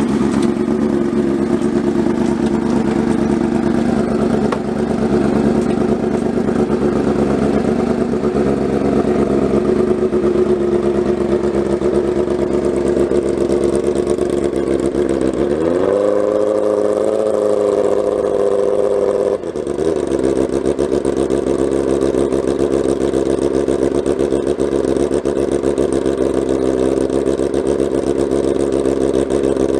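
Racing motorcycle engine running on its stands at a steady idle. About halfway through it is revved up, held higher for about four seconds, then drops back suddenly to idle.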